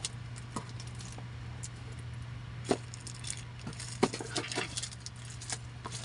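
Small objects being handled: scattered light clicks, taps and rattles, with two sharper clicks near the middle, over a steady low electrical hum.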